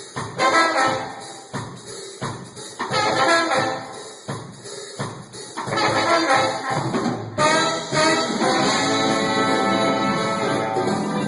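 A live band's horn section playing during a sound check, in short choppy phrases at first, then long held notes from about eight seconds in.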